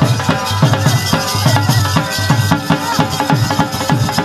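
Music with a steady drum beat of deep strokes, about two to three a second, under a melody.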